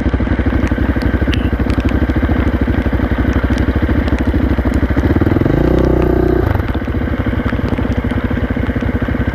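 Dirt bike engine running under way. It revs up about five seconds in and eases back about a second and a half later.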